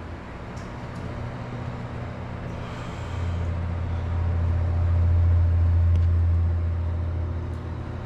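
Arno Ultra Silence Force 40 cm table fan running, its airflow blowing on the microphone as a low rumble. The rumble swells from about three seconds in, is loudest around five to six seconds, then eases off.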